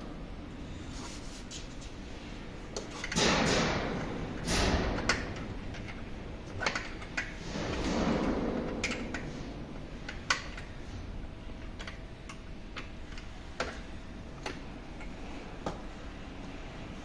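Plastic body panels of an electric scooter being handled and pressed into place by hand: scattered sharp clicks and knocks, with a few brief scraping rustles.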